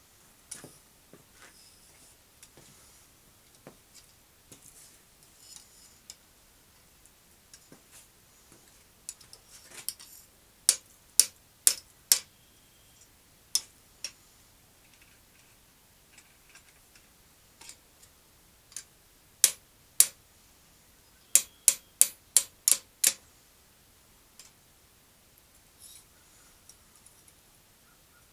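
Blacksmith's hand hammer striking red-hot iron on an anvil: sharp, ringing metallic blows in short runs. There are four quick blows, then a few single blows, then a fast run of six, with faint clinks of metal in between.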